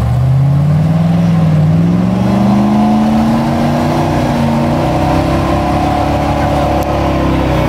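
4x4 engine revving hard under load as it strains on a tow strap to drag a stuck vehicle out of deep mud; the revs climb over the first couple of seconds, waver while held high, and drop near the end.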